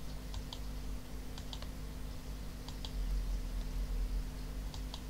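Computer mouse button clicking as vertices are picked one by one: four pairs of quick clicks, spread out over the few seconds. A steady low hum runs underneath.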